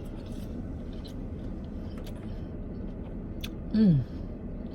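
A person chewing a mouthful of salad, with faint wet mouth clicks over a steady low background hum, and a short falling "mm" from the eater about four seconds in.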